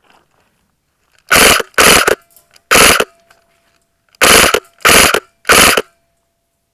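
Airsoft rifle firing six short full-auto bursts, in two groups of three, loud and close.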